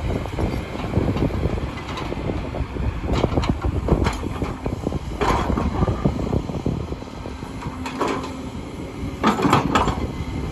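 Heavy excavator engine running steadily while working soil, with several short, sharper rattles and squeaks from the machine scattered through.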